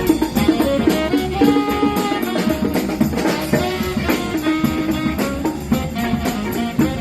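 A live band playing, with a drum kit and several instruments sounding together.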